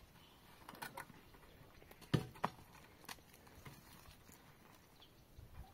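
A few scattered knocks and taps, the loudest a pair of knocks about two seconds in.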